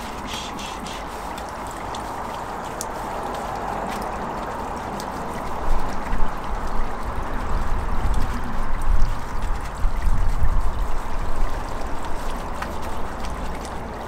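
Wet scrubbing of an alloy wheel coated in fallout remover with a small detailing brush, a steady wet hiss. From about halfway through it is joined by an uneven low rumble.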